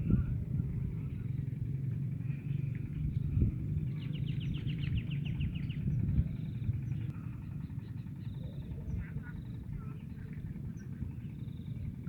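A steady low rumble on the microphone, with a bird giving a fast trill of short repeated notes for about two seconds, starting about four seconds in.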